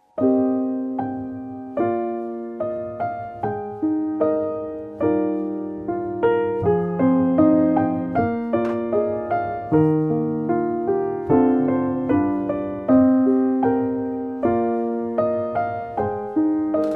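Background piano music: a slow, gentle melody of single struck notes, each ringing and fading before the next.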